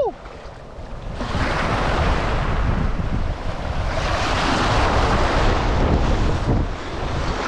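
Sea surf washing and foaming at the water's edge, swelling about a second in, with wind rumbling on the microphone.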